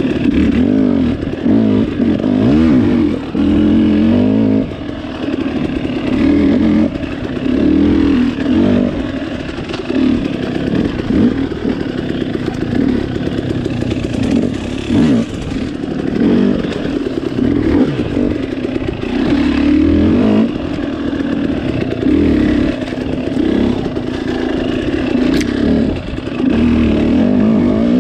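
Off-road dirt bike engine being ridden, revving up and falling back over and over as the throttle opens and closes, every second or two.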